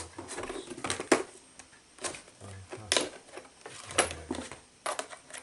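Irregular sharp clicks and clatter of small hardware and tools being handled, about one click a second, over faint rustling.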